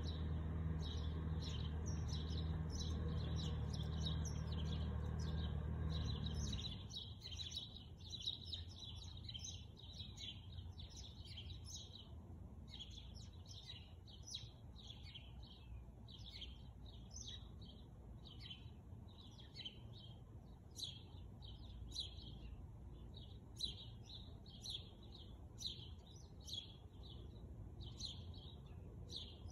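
Small birds chirping over and over, several short calls a second. A steady low hum runs under them and cuts off suddenly about seven seconds in.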